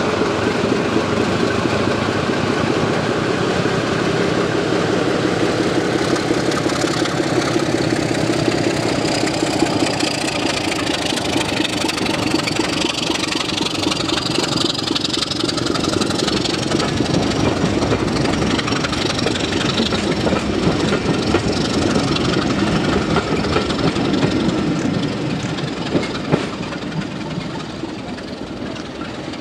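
Heritage diesel locomotive pulling a train of coaches away, its engine running under load, then the coaches rolling past on the rails; the sound fades over the last few seconds.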